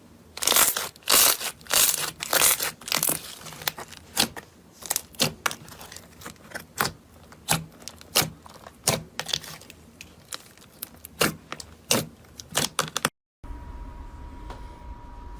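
Slime being squeezed and pressed by hand, giving a run of sharp crackling pops and clicks, dense at first and then spaced out. It cuts off near the end, and a steady low hum with a faint steady tone follows.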